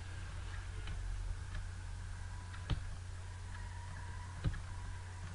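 Steady low electrical hum and hiss of a recording microphone's room tone, with two short sharp clicks, about two and a half and four and a half seconds in.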